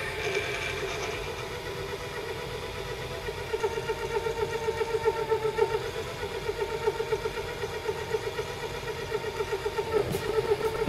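Small benchtop lathe spindle turning brass bar stock while a twist drill bores into its end: a steady motor hum that picks up a fast, even pulsing about three and a half seconds in.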